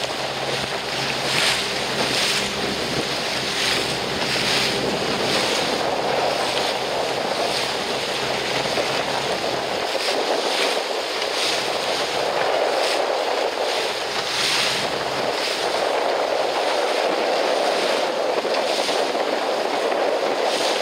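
Wind buffeting the microphone over a steady wash of waves on open sea, rising and falling in gusts.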